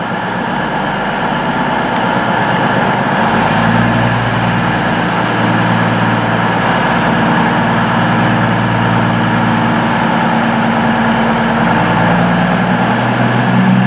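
Underfloor diesel engines of a Voyager multiple unit running as the train moves slowly along the platform. A steady engine hum grows stronger about three seconds in and holds.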